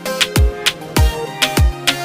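Background music in an Afrobeat style: a steady dance beat of deep kick drums and sharp snare hits under repeating pitched notes.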